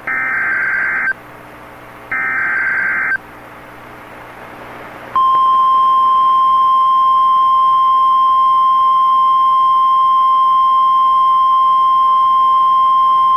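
NOAA Weather Radio Emergency Alert System signal for a severe thunderstorm warning. Two SAME header data bursts, each about a second long, come a second apart. About five seconds in, the steady single-pitch weather radio warning alarm tone starts and holds.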